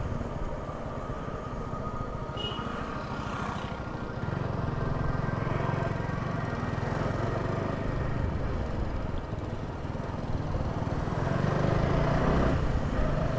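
Motorcycle running under way with wind and road noise, a steady low rumble that swells slightly about four seconds in and again near the end.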